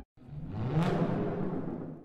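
A short transition sound effect: a swelling whoosh with a low tone rising in pitch, loudest a little under a second in, then fading away.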